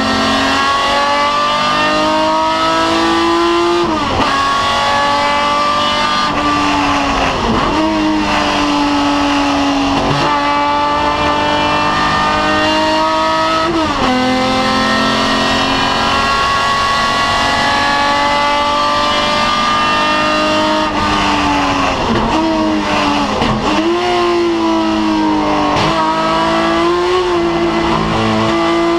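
BMW 3.0 CSL race car's straight-six engine heard from onboard at full throttle. Its pitch climbs through each gear and falls sharply at every gear change, every few seconds, with a few quick dips and blips on the downshifts.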